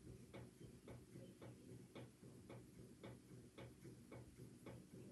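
Faint, regular ticking, a little under two ticks a second, over a low steady hum.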